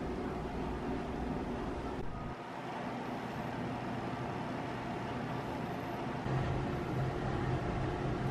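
Steady indoor room hum from ventilation and machinery, with no voices. It shifts at about two seconds in, and about six seconds in a deeper, slightly louder hum comes in.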